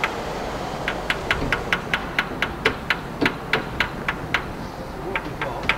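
Electric fuel pump ticking steadily, about four to five sharp clicks a second, fainter for the first second. The pump is running and delivering fuel while the engine is not running.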